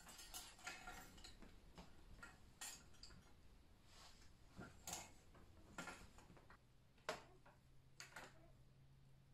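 Faint, irregular clicking and rustling as a curtain is hung: curtain rings and hooks knocking on a curtain pole, with the fabric rustling.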